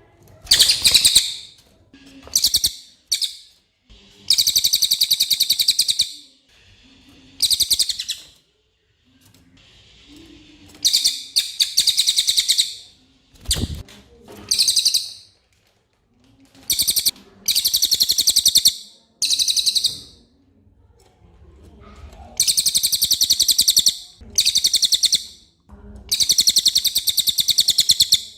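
A cililin songbird singing in loud, rapid, high-pitched trills, each burst lasting up to about two seconds and repeated about a dozen times with short pauses between.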